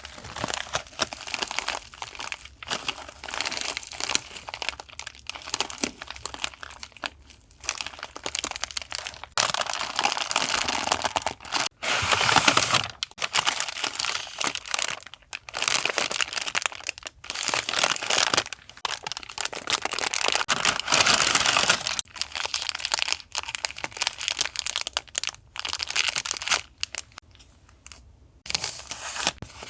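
Paper and packaging crinkling and rustling as they are handled, in irregular bursts with short pauses.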